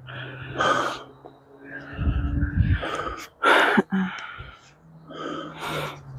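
A person breathing hard: a few sharp, hissing breaths, each about half a second long, with a faint low hum underneath.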